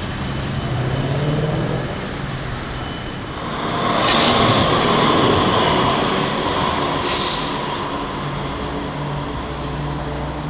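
Street traffic with a Melbourne tram passing close by: from about four seconds in, a louder rush of wheels on rail with a steady whine, easing off by about seven seconds. Car engines run at idle around it.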